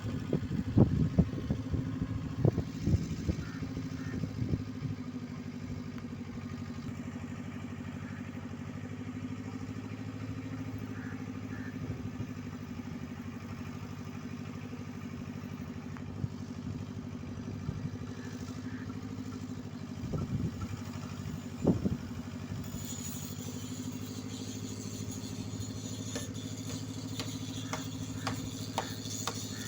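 An engine running steadily at an even speed, with a few sharp clatters in the first seconds and again about twenty seconds in, and light ticking near the end.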